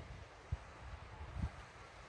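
Wind buffeting the microphone: a low, gusty rumble with two sharp pops, about half a second and a second and a half in.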